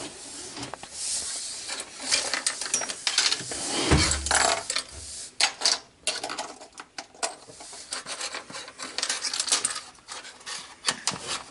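Loose plastic Lego pieces clattering and clicking against each other as they are handled, with a quick run of small clicks through the second half.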